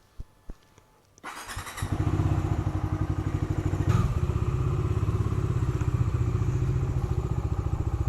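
Motorcycle engine started from cold: it catches a little over a second in and settles into a steady, evenly pulsing idle.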